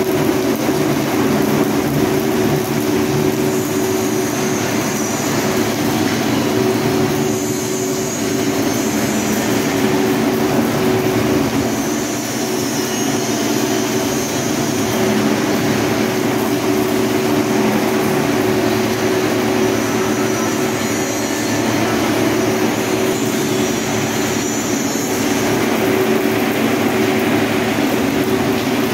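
Arc welding on a steel pipe joint: a steady arc crackle and sizzle over a loud, constant machine hum.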